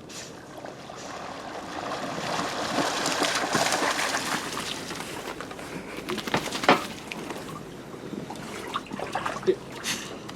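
Water sloshing and splashing, swelling to a rush over the first few seconds and then easing, with a few sharp knocks in the second half.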